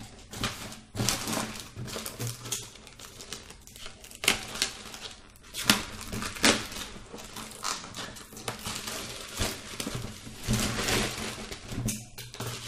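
Black plastic bag wrapping crinkling and rustling as it is pulled and cut away from a box with scissors, with a few sharp clicks and snaps.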